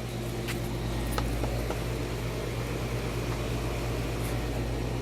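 Steady low background hum, like a fan or air conditioner running, with a couple of faint clicks near the start.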